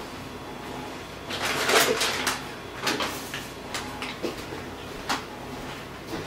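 Cardboard boxes of frozen food being gathered up and carried: a dense bout of rustling and clatter from about a second and a half to two and a half seconds in, followed by a handful of separate knocks and taps.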